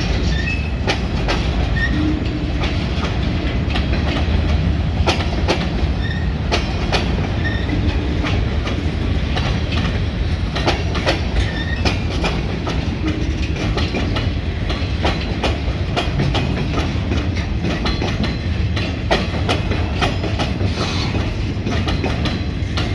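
Freight cars of a passing train rolling by at close range: a steady low rumble of steel wheels on rail, with irregular clicks and clanks as the wheels cross rail joints, and a few brief faint squeaks.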